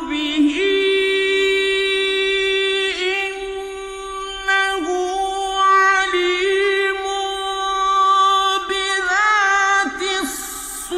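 A male Quran reciter chanting in a high voice in the slow, melismatic mujawwad style, holding long notes with ornamented turns, with a short break just before the end.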